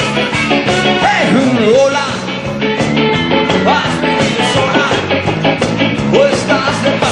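Live rock band playing an instrumental passage before the vocals come in: electric guitars with some sliding notes over drums keeping a steady beat.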